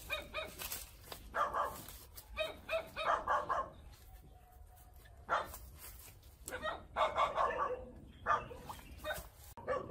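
A dog barking repeatedly in short, irregular bursts.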